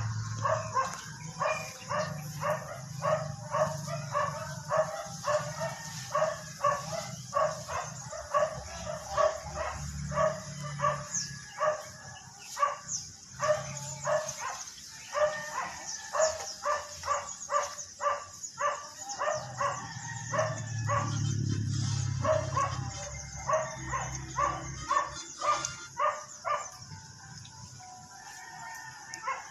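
A puppy yipping over and over in short, quick barks, about two or three a second, with a brief pause and a low rumble about two-thirds of the way through.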